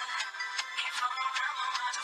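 Music with a quick, steady beat and a thin sound with no bass.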